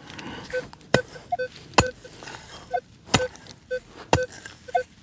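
A digging tool striking into the ground four times, roughly once a second, with short electronic beeps from a metal detector chirping between the strikes.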